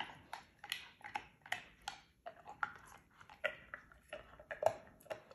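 Giant schnauzer crunching a bone between its teeth: a steady run of sharp cracking crunches, about two or three a second, the loudest a little before the end.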